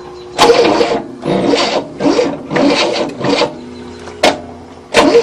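Rasping, scraping strokes, about two a second, repeated several times with a short pause and a sharp click.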